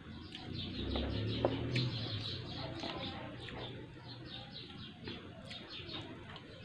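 A small bird chirping in quick repeated series of short, high notes. There is a low rumble during the first couple of seconds.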